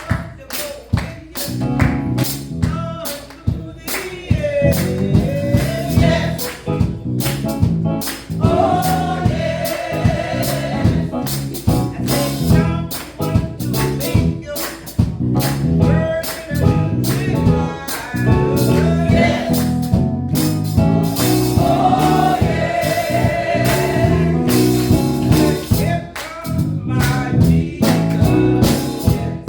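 Gospel music: voices singing over a steady beat with bass and drums.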